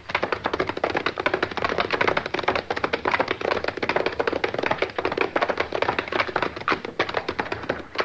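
Radio-drama sound effect of horses galloping with a wagon: a fast, dense clatter of hoofbeats and rattling that runs without a break.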